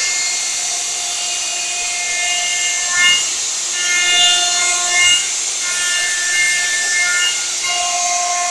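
Makita plunge router fitted with a 10 mm straight bit, running at speed and cutting a groove along a pine board in a single pass: a loud, steady whine with the hiss of the cut, swelling a few times as it is pushed through the wood.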